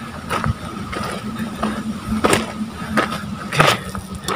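Footsteps crunching on a steep trail of loose dirt and gravel, about one step every two-thirds of a second, with a faint steady hum underneath.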